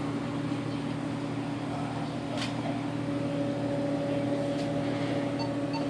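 A steady machine hum with a constant low tone, and a few faint short beeps near the end.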